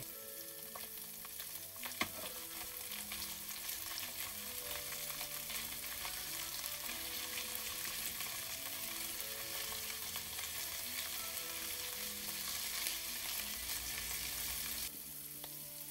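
Large prawns sizzling in oil with garlic in a non-stick pan as they are browned and turned with kitchen tongs, with a steady frying hiss. There is a single knock about two seconds in.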